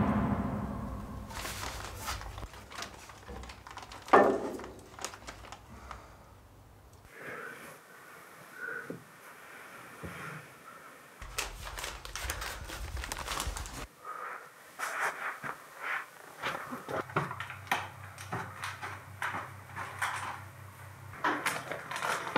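Small handling noises in a quiet room: a single sharp knock about four seconds in, then, in the second half, a run of soft rustles, clicks and taps, like a wrapper being handled and steps across the floor.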